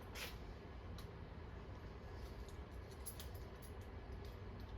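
Quiet room tone: a faint steady low hum with a few small, faint clicks.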